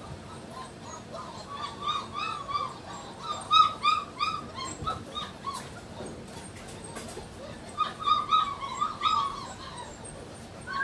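Irish Wolfhound puppies whining and yipping in short, high cries, in two runs of several quick calls a few seconds apart, eager for their food at feeding time.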